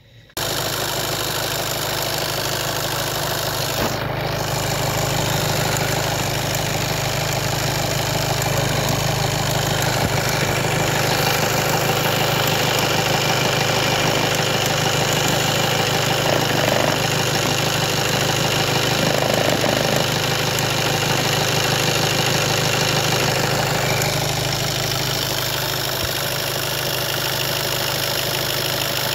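VW Golf 7 engine idling steadily with its newly replaced oil pressure switch. The sound comes in abruptly just after the start.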